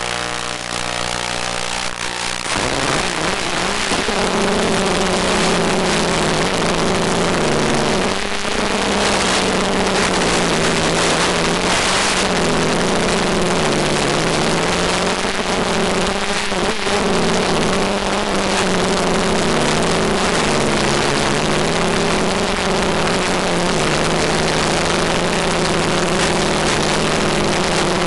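ETFD2 flying-disc multicopter's electric motors and propellers. A steady low tone sounds for the first two seconds or so. About two and a half seconds in, the motors throttle up for lift-off into a louder hum over a steady hiss. While it flies, the pitch wavers up and down with the throttle changes.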